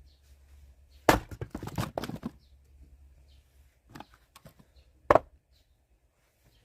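Axe splitting firewood logs. A heavy strike comes about a second in, followed by a second of crackling and clattering wood. Lighter knocks follow, then another sharp strike about five seconds in.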